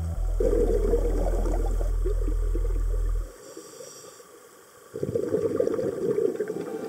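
Water bubbling and crackling over a deep, steady held tone that cuts off abruptly about three seconds in. The bubbling fades for a moment, then returns about five seconds in.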